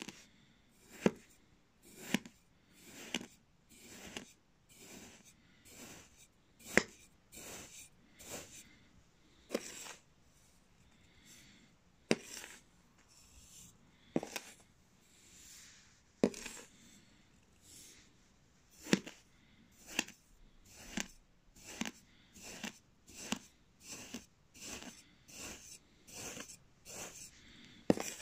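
Knife blade cutting slice after slice through kinetic sand, each cut a short crumbly scrape ending in a sharp tap, about one or two a second.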